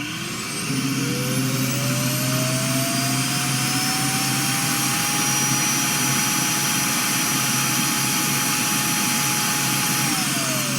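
Roomba robot vacuum's motor spinning up with a rising whine over a rush of air, running steadily and loudly, then winding down near the end.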